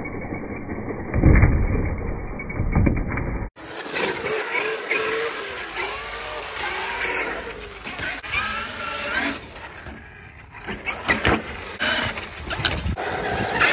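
Traxxas X-Maxx 8S RC monster truck. First a muffled, slowed-down deep rumble. Then, after a sudden cut, its brushless electric motor whines, rising and falling in pitch with the throttle, with scattered sharp knocks.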